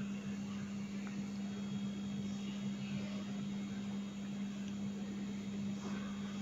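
A steady low hum over faint even room noise, unchanging throughout.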